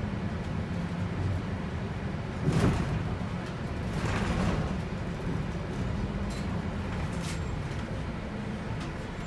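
Volvo B7RLE city bus driving, its six-cylinder diesel running steadily as heard inside the passenger cabin. Two brief louder rushing swells come about two and a half and four seconds in.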